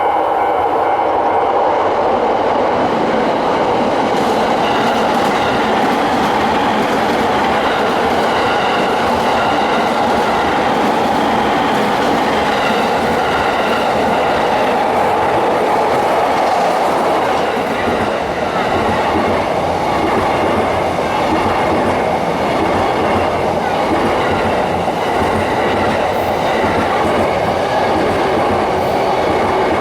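JR electric commuter train passing close by at a level crossing: a continuous loud rumble of wheels on rails with clickety-clack over the rail joints, easing slightly about halfway through before continuing.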